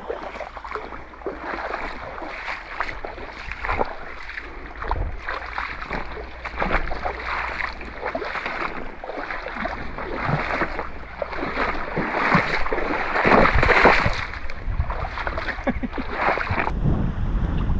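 Wading through a shallow, rocky river: water splashing and sloshing in irregular bursts around the legs, with wind rumbling on the microphone.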